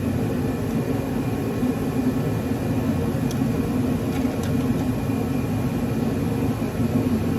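A shop's forced-air heater running: a steady motor-and-fan drone with an even rushing sound, plus a couple of faint light clicks about three and four and a half seconds in.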